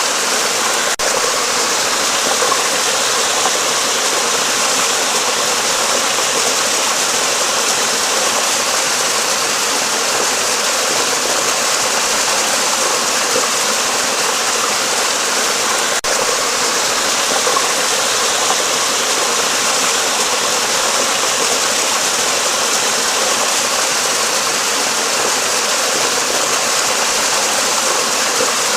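Steady rushing of flowing stream water, an even hiss that doesn't change.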